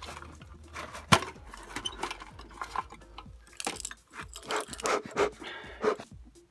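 Metal clinks and knocks of a tin bee smoker's body and lid being handled, with one sharp knock about a second in and a run of clinks in the second half. Near the end, a brief rustle of dry pine needles.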